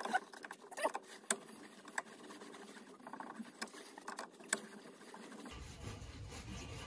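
Scattered sharp metal clicks and scrapes, about six in all: locking pliers gripping and twisting a rusted steel shock-absorber sleeve seized on its lower mounting stud.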